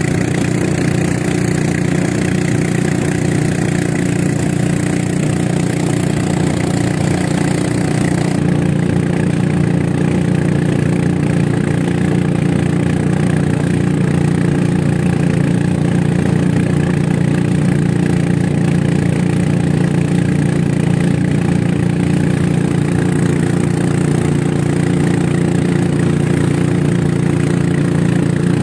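An engine running steadily at an even speed. A high hiss in the background drops away about eight seconds in.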